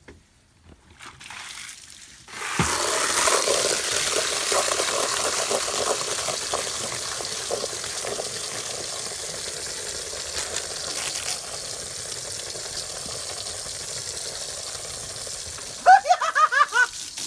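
Garden hose running water into a plastic bucket of soapy water, a steady rush of pouring and splashing that starts about two seconds in. Near the end a short run of loud, high-pitched cries breaks in for about a second.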